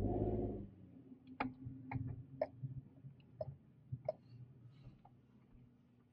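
A steady low hum fades out within the first second, then footsteps on pavement, about two a second, each a sharp click with a soft thud.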